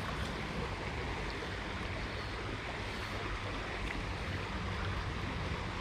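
Small trout stream flowing: a steady rush of moving water with a low rumble underneath.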